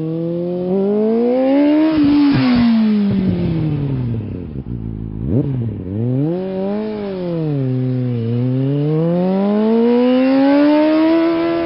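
Motorcycle engine revving up and down. The pitch climbs to a peak about two seconds in with some clatter, falls away, and gives a quick sharp blip about five seconds in. It then swells and dips again before a long climb near the end.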